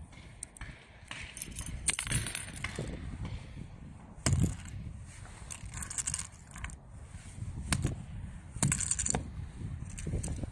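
Flag pole rings with metal carabiner clips clinking and clattering as they are handled and picked up off concrete, a series of sharp metallic clinks, with the loudest clusters about two, four and nine seconds in.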